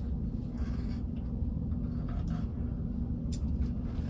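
Steady low electrical hum, with a few faint clicks and knocks of handling about a second, two seconds and three seconds in.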